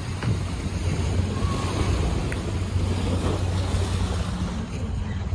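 Steady city street traffic: a constant low engine hum with an even wash of road noise.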